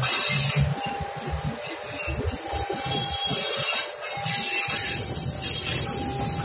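Passenger train coaches rolling past close by, their wheels thumping rapidly over the rails, then settling to a steadier rumble about three-quarters of the way in. A faint tone comes and goes about every second and a half.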